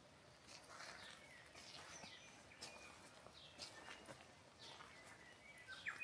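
Soft footsteps walking along a driveway, about two steps a second, with faint bird calls in the background.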